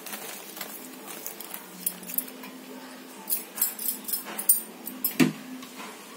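Thick lentil-and-tamarind gravy (kalya) boiling hard in an aluminium pot, its bubbles popping in quick irregular clicks, with one louder pop about five seconds in.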